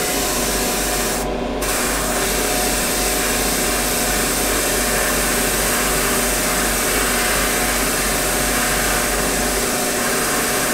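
Airbrush spraying paint: a steady hiss of air over a steady hum, the hiss cutting out briefly about a second and a half in.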